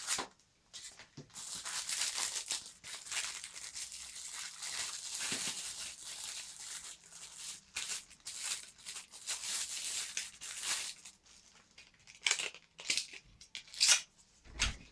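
Thin plastic packaging bag crinkling and tearing as it is cut open and handled, a dense irregular rustle, with a few sharper, louder crackles near the end as the plastic is pulled away.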